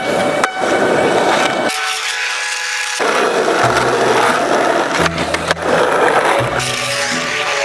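Skateboard wheels rolling over rough, cracked asphalt, with a sharp clack about half a second in as a flip trick lands. Backing music with a steady bass line comes in partway through.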